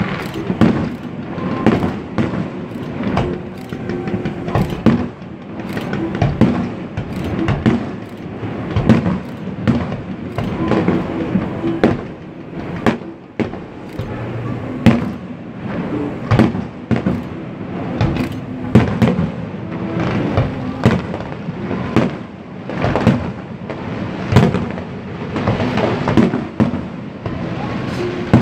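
Fireworks display: aerial shells bursting in an irregular series of booms, about one or two a second, with crackling between them.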